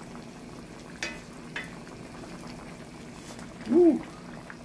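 Brown stew gravy simmering and bubbling steadily in a pot, with a couple of light taps from a wooden spoon working herbs over the fish. Near the end comes a short hummed vocal sound that rises and falls in pitch.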